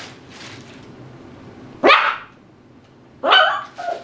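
Tibetan Terrier puppy barking: two short, sharp barks, about two seconds in and again a second or so later, the second followed by a smaller yip.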